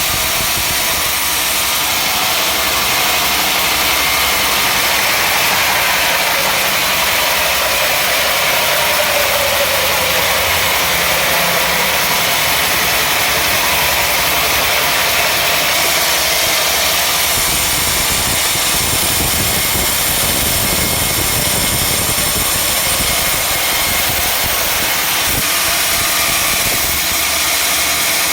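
Sawmill machinery running steadily: a constant engine-like drone under a wide hiss, with a faint tone that dips and rises in pitch about a third of the way through.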